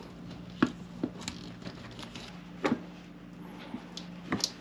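Hands working an oil filter off with a filter wrench and paper towel: a few scattered light clicks and knocks over a faint steady low hum.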